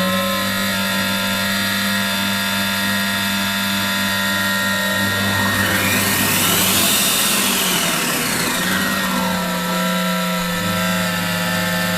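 Monsieur Cuisine Plus food processor's motor running at start-up with an abnormal noise: a steady hum with several whining tones, and a sweep that rises and falls in pitch partway through. The owner reports that this start-up noise stops after a while and the machine then runs normally.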